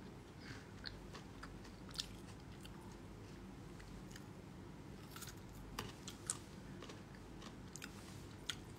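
A person eating, faint chewing and biting with scattered sharp little clicks.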